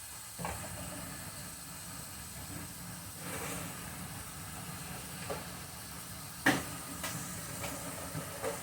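Sirloin hamburger patties sizzling steadily in a skillet, with a few sharp clicks and knocks over it, the loudest about six and a half seconds in.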